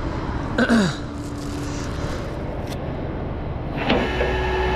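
Car-hauler semi truck's engine running at idle, with a short falling squeak just under a second in and a steady whine starting about four seconds in.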